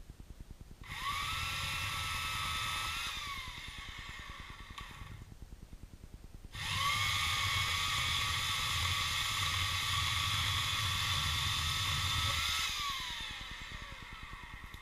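Hand-held electric saw motor run twice: a short run of about two seconds, then a longer one of about six seconds. Each run spins up with a rising whine, holds a steady pitch and winds down with a falling whine.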